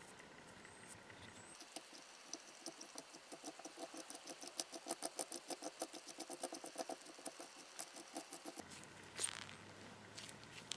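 Side handle of a vintage hand drill being twisted into the threaded boss of the drill's metal housing, giving a rapid, evenly spaced squeaky clicking that runs for several seconds. After it stops there is one sharper scrape.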